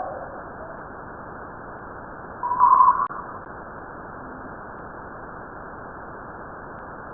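Voyager 1 space probe's recording of plasma vibrations, converted into audio: a steady hiss with one short, loud tone about two and a half seconds in.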